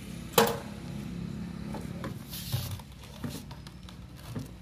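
Handling of a fuel pump dispenser: a sharp click about half a second in, then a rustle and a few soft clunks as the diesel nozzle is taken up and set into a plastic jerrycan, over a low steady hum.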